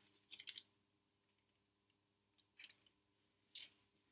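Near silence, broken by three faint, brief rustles of clay slabs being handled on newspaper.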